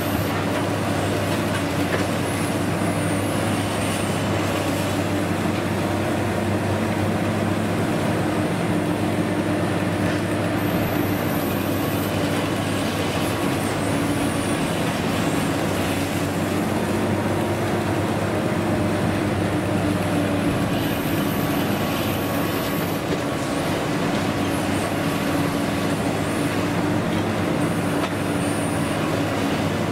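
Long-reach demolition excavator's diesel engine and hydraulics running steadily under load while its jaw attachment works at the concrete, a continuous even machine noise.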